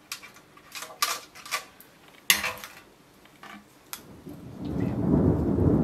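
Clicks and knocks of a metal box grater against an enamel plate as grated red onion is knocked off it, the sharpest a little over two seconds in. From about four seconds a low rumble builds up and becomes the loudest sound.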